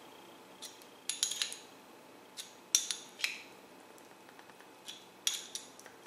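Small brass threaded pipe fittings clicking and clinking against each other as they are screwed together by hand, in a few scattered clusters of short, sharp metallic ticks.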